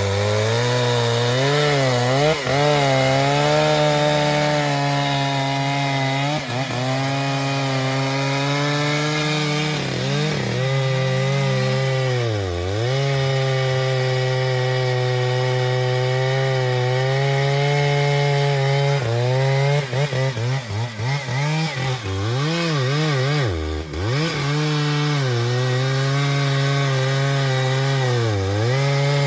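Two-stroke chainsaw running at high revs while cutting wood, its pitch wavering and dipping as the chain takes load. About two-thirds of the way through, the engine drops off and picks up again several times.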